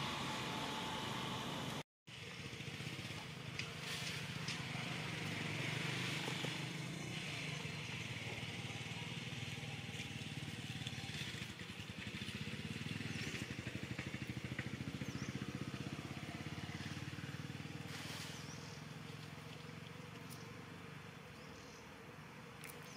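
A motor running steadily, a low pulsing hum with a hiss over it, fading toward the end; a few faint chirps near the end.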